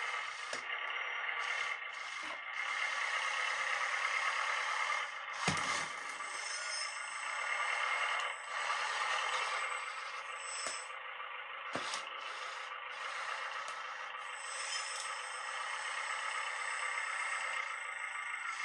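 Radio-controlled scale construction machines working: a steady whir of small electric motors and gears, with scraping and rattling, and a sharp knock about five seconds in followed by lighter clicks later.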